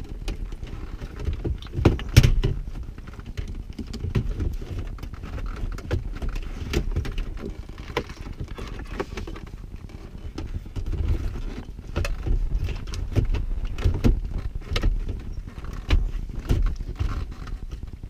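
Wiring harness plugs and the head unit being handled behind a car dashboard: irregular plastic clicks, knocks and rustling as connectors are plugged back in, with the loudest knock about two seconds in.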